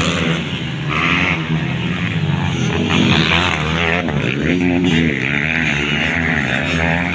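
Motocross dirt bike engines racing round a dirt track, their pitch revving up and falling back again and again, several engines overlapping.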